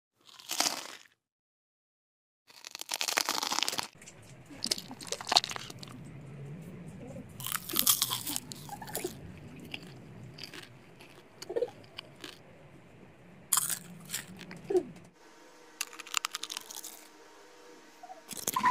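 Fresh fruit being bitten and chewed, a run of wet crunches and munching. There are two brief silent gaps near the start, and a faint steady hum comes in near the end.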